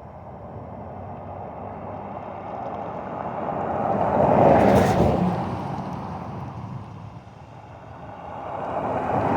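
Two vehicles pass close by one after the other, each sound swelling up to a peak and then fading away. The first peaks about halfway through, and the second is building toward its peak at the end.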